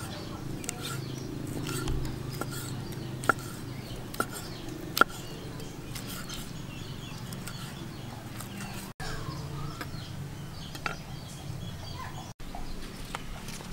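Kitchen knife slicing cooked pig offal on a thick wooden chopping block: three sharp knocks of the blade striking the wood, about a second apart, over a steady low background hum.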